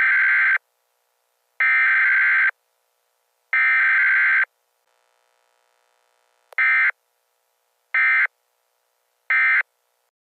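Emergency Alert System SAME digital data bursts: three long, buzzy bursts of about a second each, two seconds apart, then, after a pause, three short bursts, the pattern of a SAME header followed by an end-of-message code.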